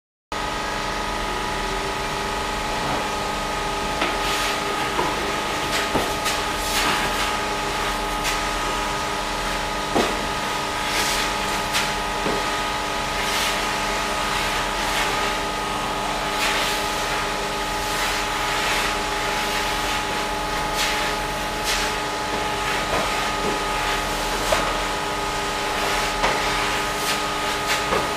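Orbital sander with a dust-extraction vacuum running, sanding body filler on a car bonnet. A steady mechanical whine carries irregular hissing swishes as the pad is worked back and forth over the panel. The sound cuts in abruptly just after the start.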